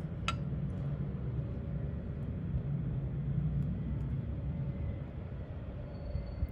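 Steady low rumble of outdoor background noise, with a single sharp click about a third of a second in.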